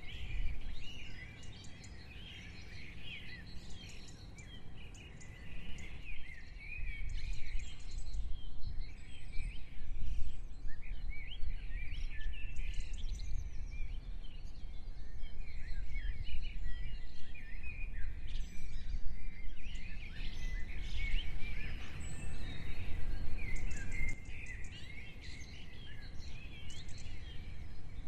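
Many songbirds chirping and trilling in quick, overlapping calls, over a low, uneven rumble that swells for most of the middle stretch and eases off near the end.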